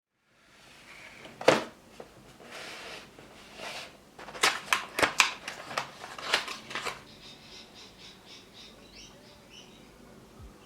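Unboxing handling sounds: a sharp knock, soft rustling, then a quick run of sharp clicks and taps, followed by faint crinkling.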